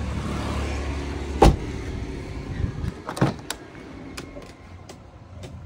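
A 1992 Honda Civic's car door shutting with one loud slam about a second and a half in, over a low rumble that fades after it. A second, softer thud from a door latch follows about three seconds in, then a few light clicks.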